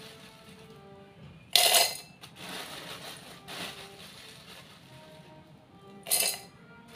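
Broken slate pencil pieces dropped into a stainless steel bowl, clattering against the metal twice, about a second and a half in and again near the end.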